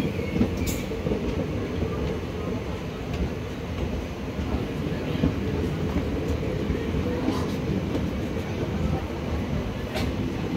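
Passenger train coaches rolling past close by as two trains cross, heard from a window of one of them: a steady rumble of wheels on rails, with a few sharp clicks.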